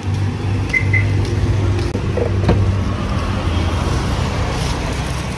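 Roadside traffic noise with a steady low engine hum. Two short high beeps come about a second in and a sharp click a little after two seconds, around the opening of a parked SUV's tailgate.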